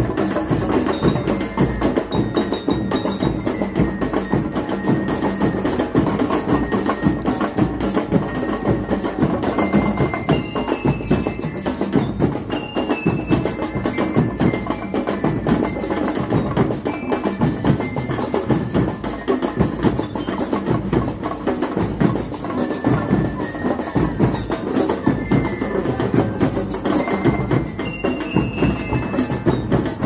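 Banda rítmica marching band playing: bell lyres ring out a melody of short, bright metallic notes over a steady beat of drums.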